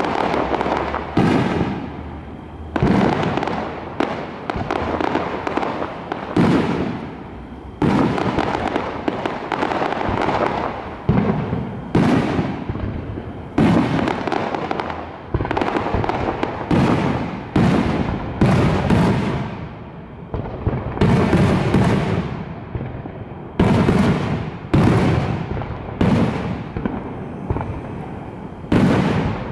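Aerial firework shells bursting in quick succession, about one boom a second and sometimes two close together. Each boom trails off in an echo.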